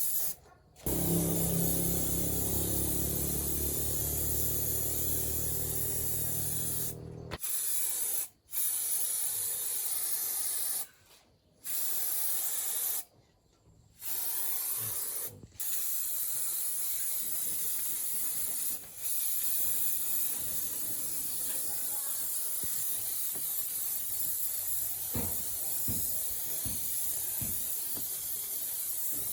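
A steady hissing noise, broken by several short silent gaps. A low, even hum runs under it for the first several seconds.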